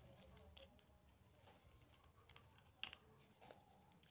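Faint clicks and scrapes of a small metal nail tool picking at a thick, yellowed toenail, with one sharper click about three seconds in.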